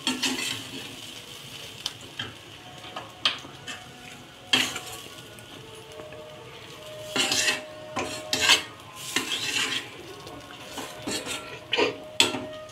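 Steel spoon scraping and clinking against a stainless steel kadai as a crumbly lentil and bean stir-fry is turned over, in irregular strokes with a busy run of scraping in the second half and a sharp clink near the end. A faint sizzle of the mix frying runs underneath.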